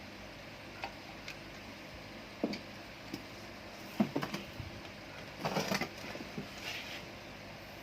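A few scattered clicks and knocks, with a short run of crackling about five and a half seconds in, over a steady mechanical hum.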